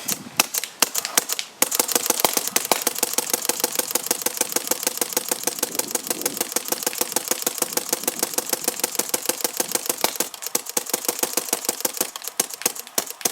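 Paintball marker firing: a few single shots, then about a second and a half in a long, fast string of shots in rapid succession, thinning slightly near the end.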